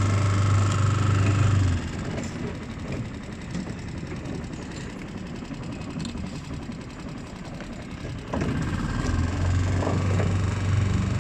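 Small petrol outboard engine of a hire motorboat running with a steady hum; about two seconds in it drops to a quieter, rougher note, then comes back up to its full steady hum about eight seconds in.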